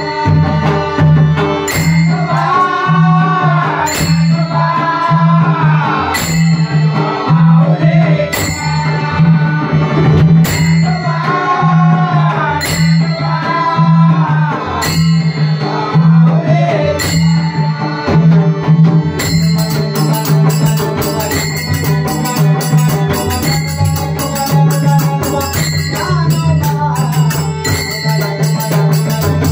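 Marathi devotional bhajan: a high male voice sings over a harmonium, a pakhawaj drum keeps a steady beat and small brass taal hand cymbals strike about once a second. About 19 s in, the singing drops back and the cymbals break into a fast, dense clashing.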